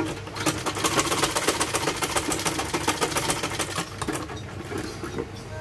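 Electric sewing machine, a black head driven by a belt from an add-on motor, stitching a seam: a fast, even run of needle strokes that stops about four seconds in.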